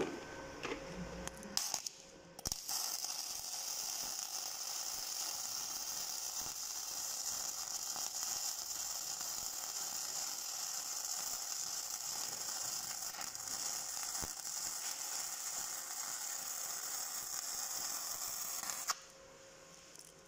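Flux-cored arc welding with 1 mm self-shielded E71T-GS wire from a Gladiator IMET 7160/120 single-phase inverter on 18-gauge sheet steel: a steady crackling arc that starts about two seconds in and stops a little before the end.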